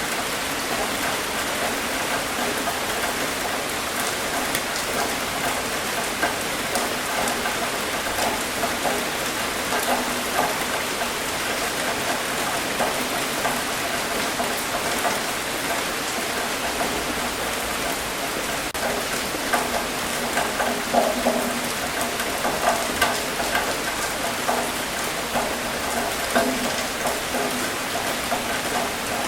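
Steady rain falling, with many separate drops striking a surface. Several louder drop hits stand out in the second half.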